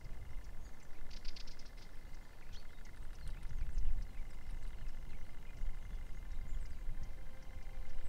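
Outdoor ambience: wind rumbling on the microphone, with a steady thin high buzz and short bird chirps now and then, a cluster of them about a second in.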